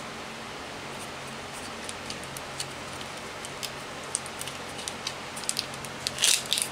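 Hands working a wiring harness, with small scattered clicks and ticks from its plastic connector and corrugated split conduit and a louder crinkling rustle about six seconds in. A faint steady hum runs underneath.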